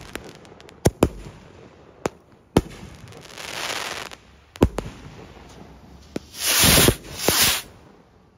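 Salute rockets firing from rocket stands: a string of about seven sharp bangs as the reports burst overhead, mixed with hissing rocket whooshes, the loudest a double whoosh about two-thirds of the way through.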